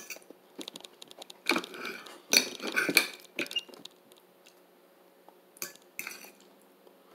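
Cutlery scraping and clinking against a plate while eating, heaviest in a busy stretch about one and a half to three seconds in, with two more sharp clinks near the end.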